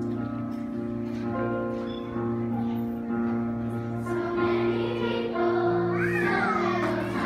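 Children's choir singing a Christmas song over instrumental accompaniment. The accompaniment's held notes lead at first, and the children's voices come in strongly about four seconds in.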